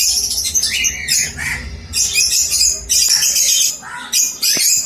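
Aviary of small pet parrots, cockatiels among them, squawking over one another with harsh, repeated high calls.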